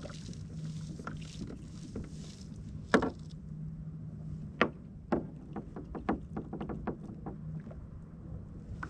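Spinning fishing reel being cranked, a low steady whir that comes and goes. It is broken by sharp clicks and knocks, the loudest about three seconds in, with a quicker run of ticks a couple of seconds later.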